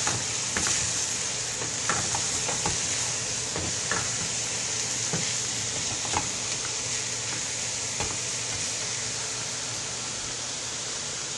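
Chopped vegetables and sausage sizzling in a stainless steel skillet, with a wooden spatula scraping and knocking against the pan now and then as it is stirred; the knocks stop after about eight seconds while the sizzle goes on.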